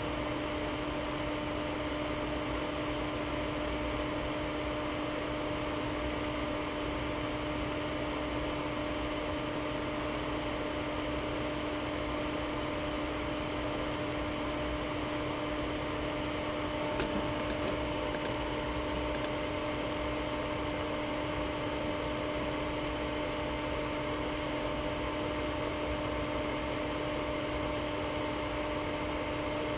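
Steady electrical hum with a low background hiss after a radio transmission ends, with a few faint clicks about 17 to 19 seconds in.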